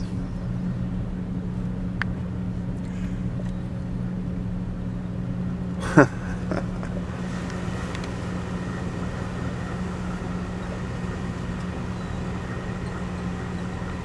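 Car engine running steadily, heard from inside the vehicle as a low, even hum. About six seconds in there is one brief, loud sound that falls quickly in pitch.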